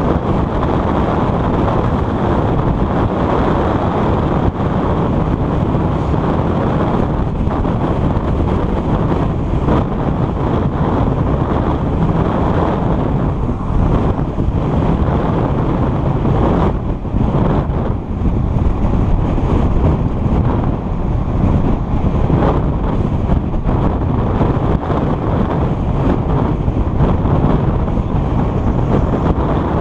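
A car driving steadily along a road: a continuous rush of wind on the microphone mixed with tyre and road noise.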